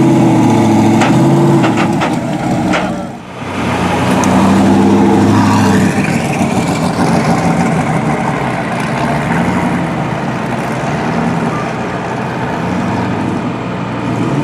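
SSC Ultimate Aero's V8 engine running at moderate revs, its pitch rising and falling, with a brief dip in level about three seconds in.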